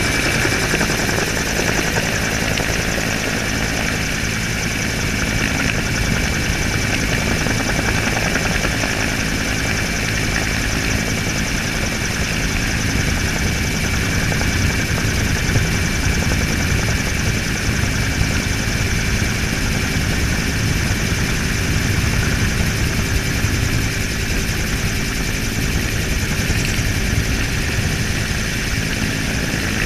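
Helicopter in flight, heard from the open cabin doorway: the rotor and engine run steadily and loudly, with a steady high whine over the noise.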